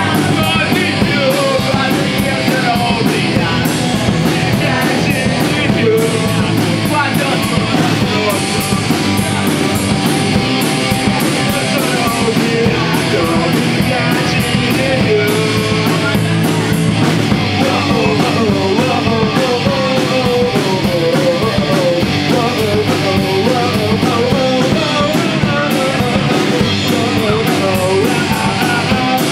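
Live pop-punk band playing: distorted electric guitars, bass and drums, with a singer's voice over the top.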